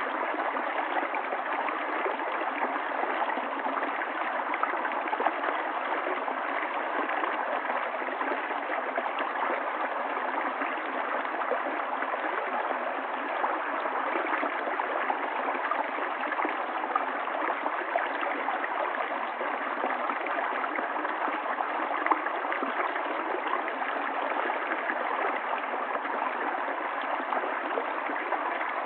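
River water flowing steadily: a continuous, even rush with small gurgles and splashes running through it.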